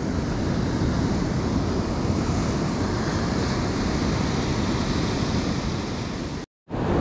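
Steady rush of surf on a beach, mixed with wind on the microphone. The sound cuts out completely for a moment near the end.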